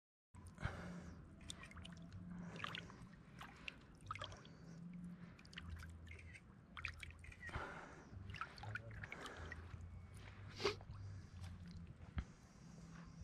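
Quiet, irregular water splashing and dripping, with scattered small knocks over a low hum. A sharper knock comes about two-thirds of the way through.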